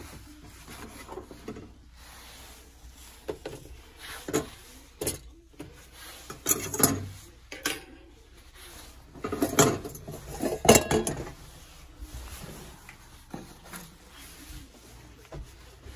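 A frying pan, a metal pan gripper and other kitchen things being handled and set down: scattered clatters and clinks, the loudest cluster about ten seconds in.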